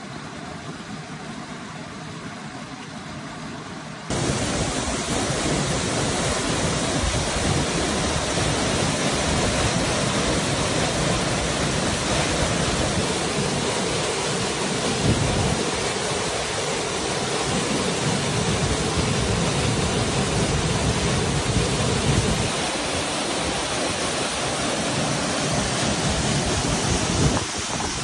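Running water of a mountain stream over a small rocky cascade, then, with an abrupt switch about four seconds in, the louder, heavier rush of a waterfall plunging into a rock pool, easing off slightly near the end.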